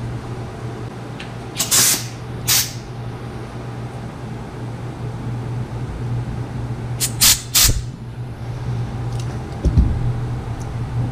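Short hissing spray blasts into a carburettor being cleaned: two about two seconds in, then three quick ones about seven seconds in, over a steady low hum, with a thump near the end.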